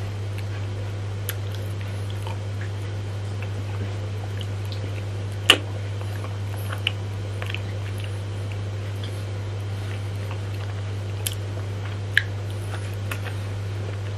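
Close-up eating sounds from a matcha ice cream bar being bitten and sucked: a few short, sharp bite and mouth clicks, the loudest about five and a half seconds in and another near the end. A steady low hum runs underneath.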